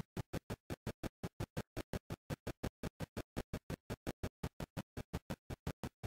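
Helicopter rotor beating in an even pulse of about six beats a second, each beat sharp with near-silence between.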